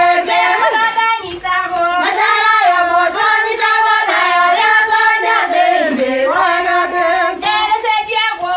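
A high voice singing a tune to a baby, holding notes and gliding between them without a break.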